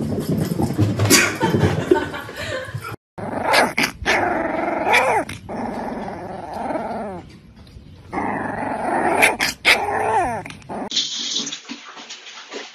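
Small black-and-tan puppy growling and giving short yipping barks that slide down in pitch, in two bouts.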